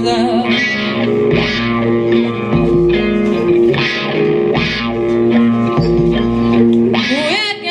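Instrumental passage of a live band: a Telecaster-style electric guitar plays long held notes over a steady bass line, with no singing until a voice slides up near the end.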